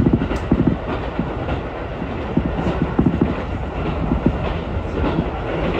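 Ichibata Electric Railway electric train running, heard from inside the car: a steady low rumble with uneven clacks of the wheels over the rail joints.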